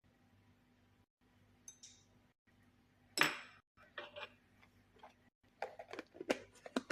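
Small kitchen items being handled: a faint tick, a sharper click about three seconds in, then a quick run of light clicks and taps in the last second and a half.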